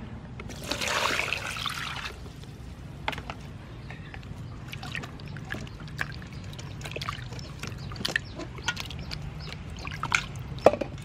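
Water poured into a stainless steel bowl for about a second and a half near the start. After that, hands swish and rub peeled carrots, potatoes and an onion in the water, with frequent small splashes and knocks against the bowl.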